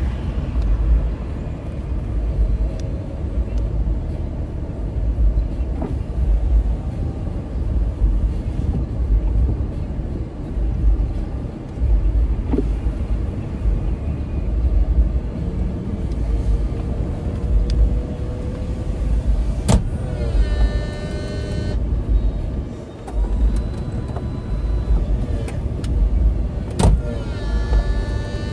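Car driving with its convertible top down: wind buffets the microphone in gusts over road and engine rumble. Twice in the second half a sharp click is followed by a brief pitched sound of a couple of seconds.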